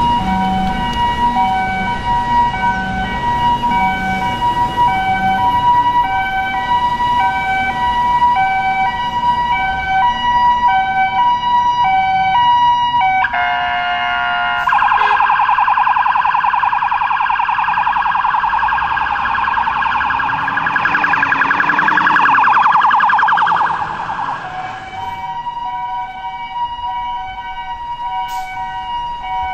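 Fire truck siren on a Scania aerial pumper, sounding a two-tone hi-lo for about the first thirteen seconds. It then switches to a fast warbling tone for about ten seconds and goes back to the hi-lo near the end, with the truck's engine faintly underneath.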